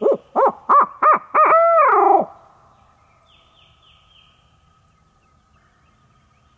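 Hand-held owl hooter call blown in imitation of a barred owl: a quick run of short hoots, each rising in pitch, then one long hoot that drops off at about two seconds in. It is a locator call, blown to make a tom turkey shock-gobble. A songbird's short falling chirps follow faintly.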